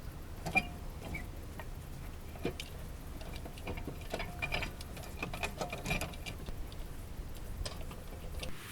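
Metal tools clinking during a tyre change: the lug wrench and lug nuts tick and knock. Some strikes ring briefly with a bright metallic "charin" tone, the loudest about half a second in.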